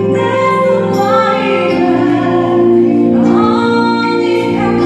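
A woman singing a slow song into a handheld microphone over a musical accompaniment, holding long notes and gliding up between pitches about three seconds in.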